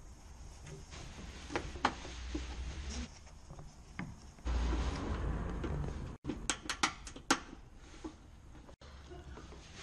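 Plastic clips and a plastic wheel-arch liner being worked loose by hand and with a pry tool: scattered clicks, a rough rubbing stretch about halfway through, then a quick run of sharp clicks.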